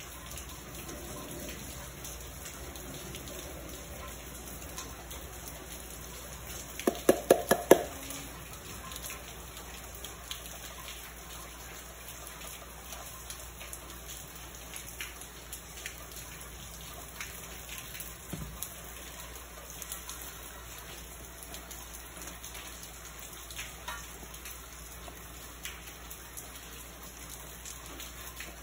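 Sweetened condensed milk pouring and dripping slowly from a carton into a steel saucepan, over a steady low hiss. About seven seconds in, a quick run of loud clicks.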